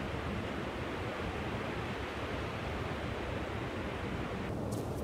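Ocean surf breaking on a beach: a steady rush of noise, its higher hiss dropping away abruptly near the end.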